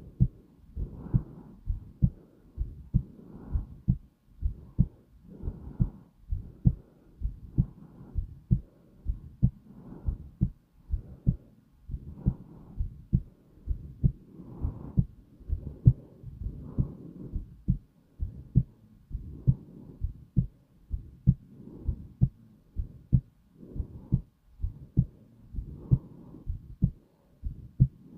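Heartbeat beating slowly and steadily, a double lub-dub thump about once a second, with a soft whooshing hiss between the beats.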